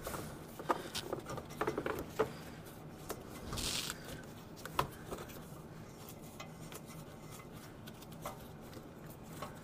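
Light clicks and rubbing as gloved fingers spin a loosened oxygen sensor out of an exhaust header, its metal body and wire knocking and scraping; the clicks cluster in the first two seconds, with single ones later, and a brief hiss comes about three and a half seconds in.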